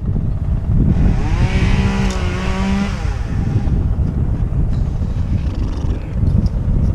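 Wind buffeting the microphone as a loud, rough rumble, with a pitched drone that rises and falls for about two seconds near the start.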